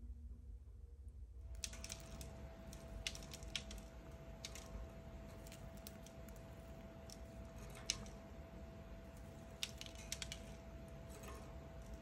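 Budgie pecking and nibbling at a hanging plastic toy and the treat fixed to it: irregular small clicks and taps of beak on plastic and treat. These start about a second and a half in, over a faint steady hum.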